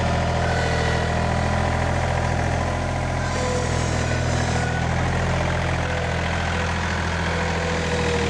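Compact tractor's engine running steadily at idle just after being started, a low even hum.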